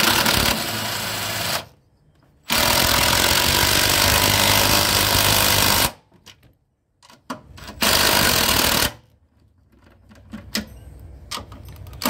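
Cordless impact wrench running in three bursts, the middle one about three and a half seconds long and the others about a second, driving down the upper mounting nuts of a new front strut's top mount.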